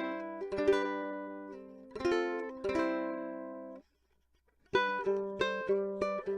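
Low-G-strung Ohana TK10 ukulele being played, with plucked notes and chords ringing. Near the middle the sound cuts out completely for about a second. It then resumes with evenly repeated chords, heard through the homemade door-alarm pickup alone.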